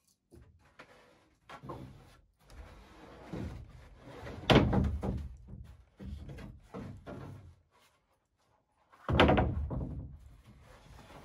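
Thumps and knocks of work on wooden roof boards: a few lighter knocks, then two heavy thumps about four and a half and nine seconds in, each ringing on through the boards.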